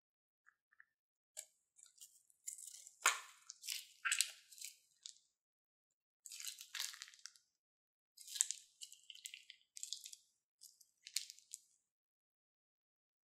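Thick slime squeezed out of a cut plastic bag: short wet squelching and crackling bursts in three spells, with brief pauses between them.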